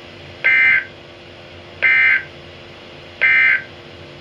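Emergency Alert System end-of-message data bursts: three short, identical bursts of warbling digital tones about a second and a half apart. They signal the end of the alert.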